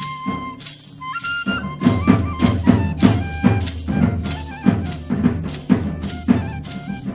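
Background music with a steady beat of rattling, tambourine-like percussion and a melody. A deep drum and bass line comes in about one and a half seconds in.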